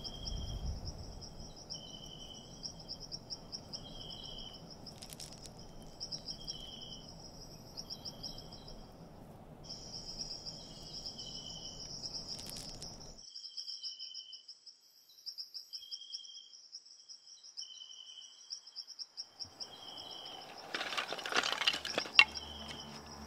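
Forest ambience: insects chirring steadily in a high, pulsing drone, with short chirps repeating every second or so, over a low background hiss that cuts off about 13 seconds in. Near the end comes a burst of rustling with one sharp crack.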